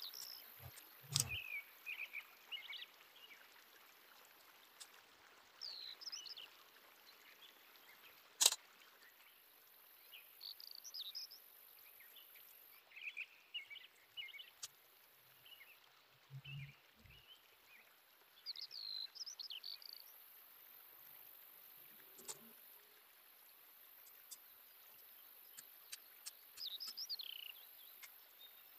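Quiet background of short descending bird chirps every few seconds over a steady high insect hiss, with one sharp click about eight seconds in and a few soft bumps.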